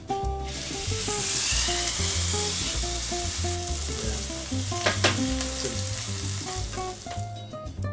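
Steak sizzling hard in a hot pan. The sizzle starts suddenly about half a second in and dies down near the end, with one short sharp clink about five seconds in.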